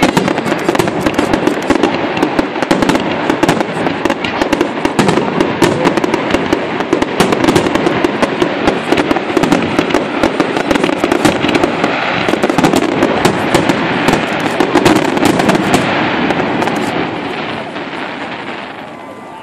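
Aerial fireworks in a dense barrage: many shell bursts and crackles every second, packed so close they run together. The barrage fades away over the last couple of seconds.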